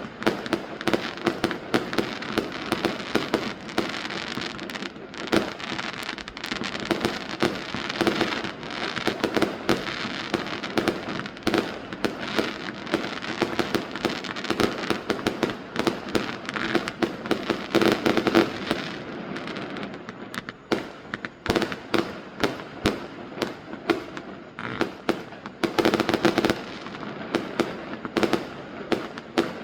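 Fireworks going off in a dense, continuous run of rapid bangs and crackling. It thins out a little about two-thirds of the way through, then a heavy cluster of bangs follows near the end.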